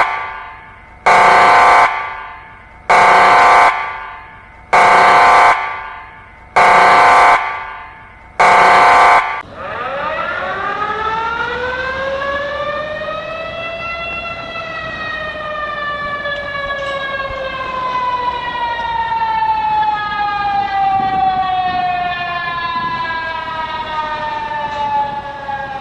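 Emergency alert alarm audio: five loud, harsh alarm blasts about two seconds apart, each with a ringing tail. Then a wailing siren rises in pitch for about four seconds and slowly winds down.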